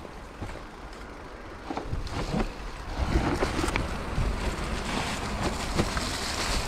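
Mountain bike rolling down a rough forest trail: wind buffeting the microphone, tyre noise and scattered rattles and clicks from the bike. It grows louder about two or three seconds in.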